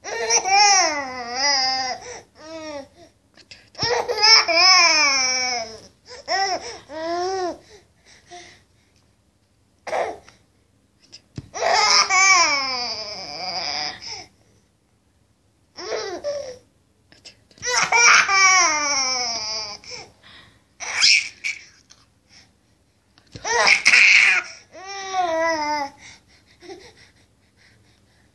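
A baby laughing in repeated bouts of high-pitched laughter, each a second or a few seconds long, with the pitch sliding up and down, broken by short pauses.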